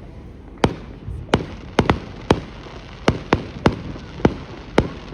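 Fireworks going off: about ten sharp bangs at uneven intervals, some in quick pairs.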